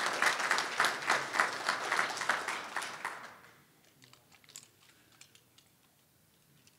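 Audience applauding, a dense patter of claps that dies away about three seconds in, leaving only a few faint clicks.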